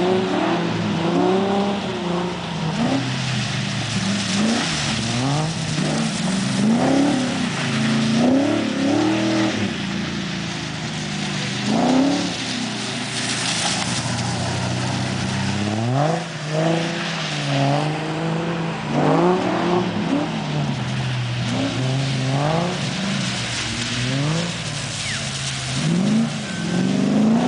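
Ford EF Falcon engine revving up and dropping back over and over, every second or so, as the car is held in slides on a wet skidpan, with a hiss of tyres on the wet surface.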